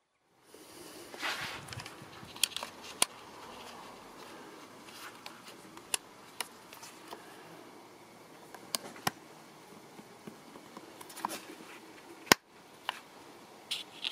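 Scattered sharp plastic clicks and taps as a Mazda A-pillar trim clip is handled and worked in the plastic trim panel, the loudest about twelve seconds in, over a steady low background noise.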